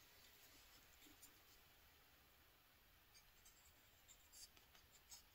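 Near silence: room tone, with a few faint short ticks and rustles in the second half.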